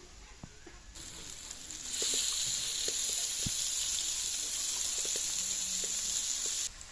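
Raw chicken pieces sizzling as they drop into hot oil and fried spice paste in a kadai. The hiss starts about a second in, turns much louder a second later, holds steady, and stops abruptly near the end.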